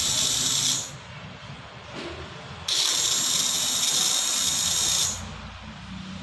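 Small 12-volt DC submersible pump running dry in air, buzzing with a high whine in two timed bursts as the dispenser board switches it on and off. The first burst cuts off just under a second in, and the second runs for about two and a half seconds from near the middle.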